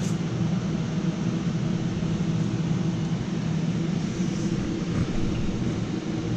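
Steady machinery drone with a constant low hum, like ventilation or engine-room plant running aboard the vessel.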